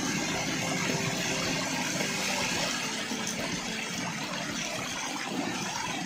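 Stream water rushing and splashing steadily over rocks in a small white-water cascade.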